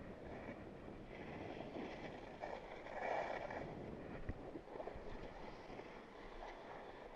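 Snow hissing and scraping under edges sliding and turning through soft snow on a downhill run, swelling louder about three seconds in, with wind noise on the microphone.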